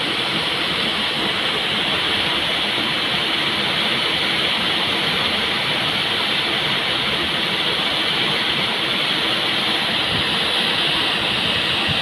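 Waterfall pouring over a rock ledge into a pool: a steady rush and splash of falling water.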